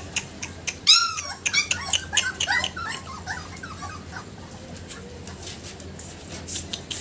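A litter of American bully puppies whining and yipping: one loud yelp about a second in, then a quick run of short whimpers, with scattered sharp clicks throughout.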